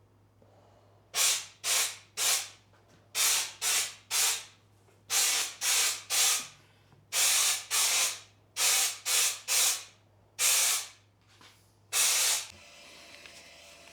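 Short bursts of hissing spray, about seventeen of them, mostly in quick groups of two or three, each lasting half a second or less, over a faint steady hum.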